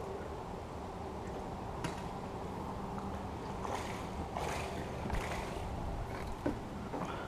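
Small fishing boat sitting on the water: water sloshing and lapping at the hull under a steady low hum, with a few short knocks and rustles of gear being handled in the boat.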